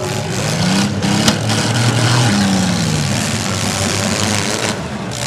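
Demolition derby car engines revving up and back down, with a sharp bang about a second in.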